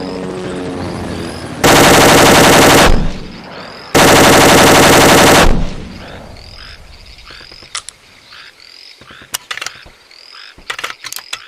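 DP-23 machine gun firing two bursts of automatic fire, the first just over a second long and the second about a second and a half. Frogs croak in the background once the firing stops.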